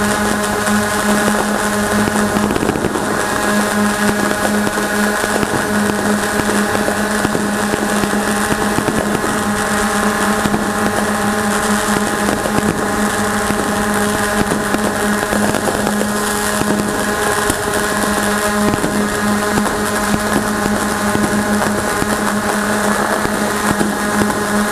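Ghostdrone 2 quadcopter's motors and propellers humming steadily at one pitch in flight, with faint firework bangs and crackles underneath.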